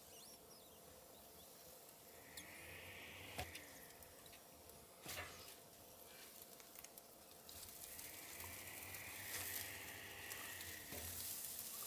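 Gloved hands lifting and setting racks of ribs back on a drum smoker's grill grate, with faint sizzling from the hot cooker. Two sharp clicks come about three and a half and five seconds in, and the sizzling grows louder in the second half.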